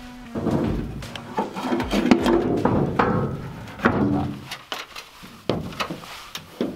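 A welded steel angle-iron tray knocking and scraping as it is set and shifted in a pickup truck bed: an irregular run of knocks and clunks.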